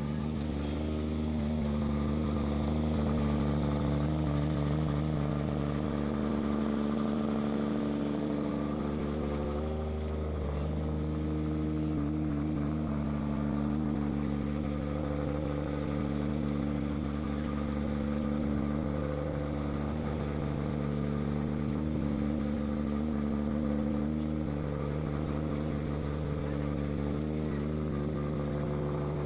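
A boat's engine running steadily, a low even hum with a slight shift in pitch about ten seconds in.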